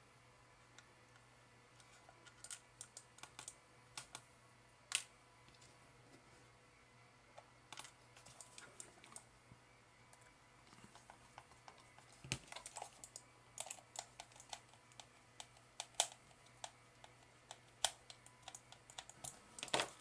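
Faint, scattered light clicks and taps from a precision screwdriver driving small screws back into the plastic base of a Razer DeathAdder Elite mouse. The clicks come in two loose clusters, one a few seconds in and a busier one in the second half.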